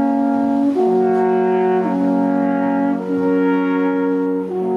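Three alphorns playing long held notes together in harmony. The chord changes about every second, four times in all.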